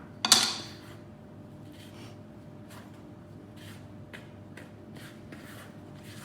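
Dry brownie ingredients (flour, raising agents and brown sugar) being stirred in a mixing bowl to break up the sugar lumps: soft, repeated scraping strokes, about two a second. A louder clatter comes about a third of a second in.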